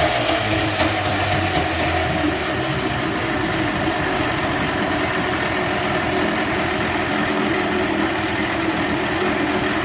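Two-stroke Evinrude 25 outboard engine running steadily, settling toward idle.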